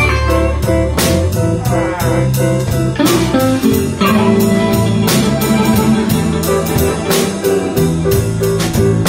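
Live blues band playing: amplified harmonica played into a microphone over electric guitar and a drum kit keeping a steady beat.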